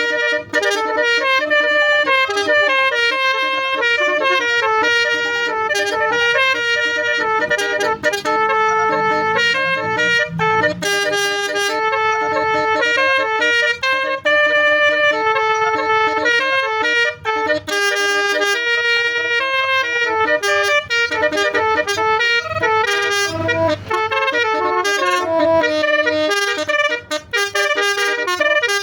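Basuri multi-tone bus horn playing a melody: several horn notes sound together and step from one pitch to the next with hardly a break.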